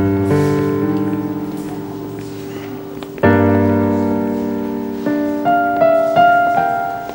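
Dramatic background score on piano: a held chord struck at the start and another about three seconds in, then slow single higher notes of a melody.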